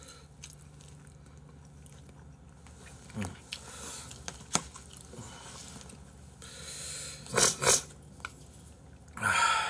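Quiet mouth-eating sounds of chewing and soft clicks of utensils on dishes as two people eat rice. Two short, loud noisy bursts come a little past the middle, and a brief voice sound comes near the end.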